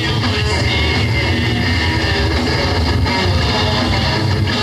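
A rock band playing live: electric guitars over drums, loud and unbroken.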